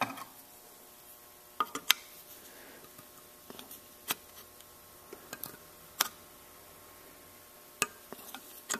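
Steel snap ring being pushed into its groove in a John Deere mower deck spindle housing with a screwdriver: irregular sharp metal clicks, about half a dozen, spread a second or two apart.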